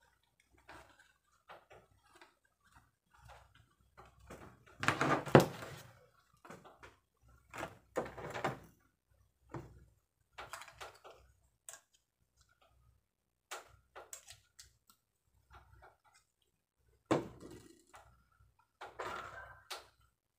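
Small plastic action-camera mount parts being handled and fitted together: scattered clicks, knocks and rustles, with a louder clatter about five seconds in.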